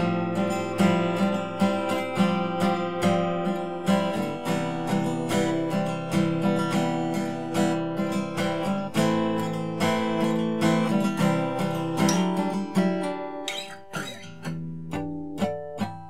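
Seagull S6 Original steel-string acoustic guitar (solid cedar top, cherry back and sides) strummed in full chords with a steady rhythm. In the last few seconds the playing thins to fewer, quieter strokes.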